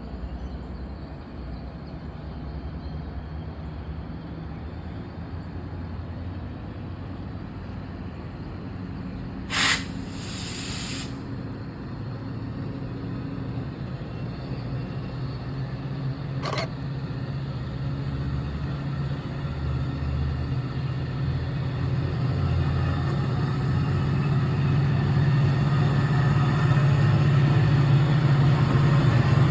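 GP39 diesel locomotive pushing a commuter train away from the station, its engine running with a steady drone that grows louder. About ten seconds in there is a short, loud hiss of air, and a single sharp click follows some seconds later.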